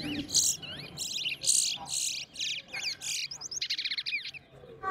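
Towa-towa (chestnut-bellied seed finch) songbirds singing in competition: a series of rapid, high-pitched chirping phrases with short pauses between them. Each phrase is a song the judge is counting.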